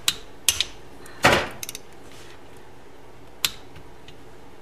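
Hand tools clicking and knocking on metal: about half a dozen separate sharp clicks, the loudest a short metallic clatter a little over a second in.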